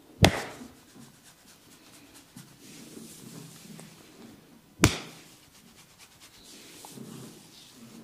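Two loud, sharp hair cracks, a tuft of hair gripped and yanked so it snaps, one just after the start and one about five seconds in, with faint handling noise of hands in hair between.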